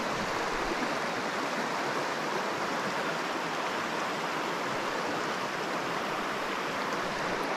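Shallow, rocky stream running over small riffles: a steady rush of water.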